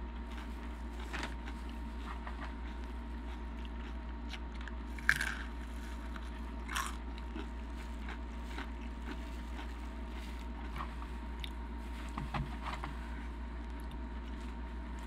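Chewing a jalapeño stuffed with cream cheese and hard rolled Takis tortilla chips: repeated crunches and crackles as the chips break, the sharpest crunch about five seconds in and another cluster near the end.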